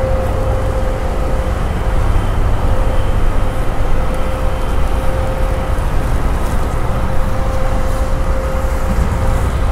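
An engine running steadily: a constant hum over a low rumble.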